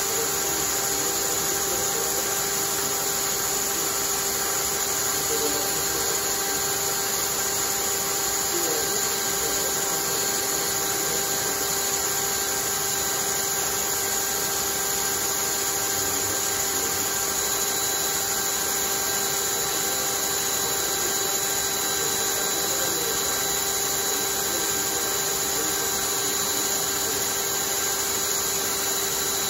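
Cordless drill motor running at a steady speed, spinning a homemade centrifuge rotor of wooden discs on a threaded rod. A constant whine that holds one pitch throughout, over a whirring hiss.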